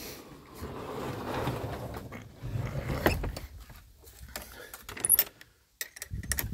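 Footsteps swishing through long grass, then the metal hasp and latch of a wooden door being handled: a sharp click about three seconds in, followed by scattered clicks and rattles.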